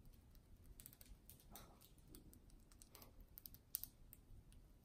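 Budgerigars husking seed from a hand with their beaks: faint, irregular little clicks and cracks, a quick cluster of sharper ones a little before the end.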